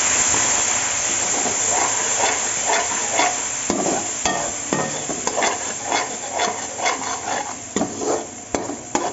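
Browned chopped onions sizzling in hot oil with a splash of water in a steel pan, while a slotted metal spoon stirs and scrapes against the pan about twice a second. The sizzle is loudest at first and dies down, leaving the scraping strokes more distinct near the end.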